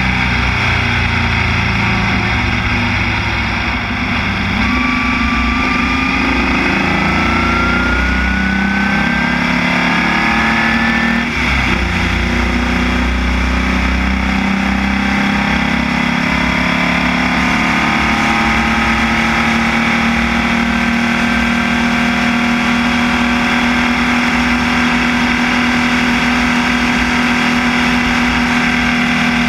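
Formula Vee race car's air-cooled Volkswagen flat-four engine running hard at speed, heard onboard, its pitch climbing steadily. There is a short break about eleven seconds in, then the pitch climbs again more slowly.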